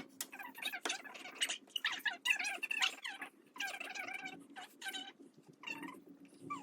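Repeated short, high-pitched animal cries over a steady low hum.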